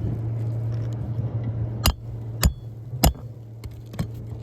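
Hammer striking a roofing snake tool to drive a roofing nail under a shingle tab. There are three sharp strikes about half a second apart and then a lighter one, over a steady low hum.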